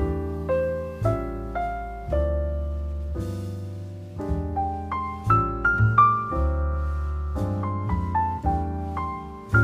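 Background piano music: a slow melody of single notes over held bass notes.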